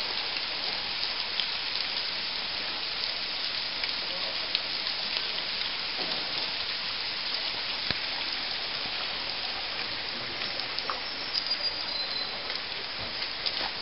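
Spring water dripping and trickling down a rock wall, a steady hiss of falling water that sounds like rain but is seepage from the spring above.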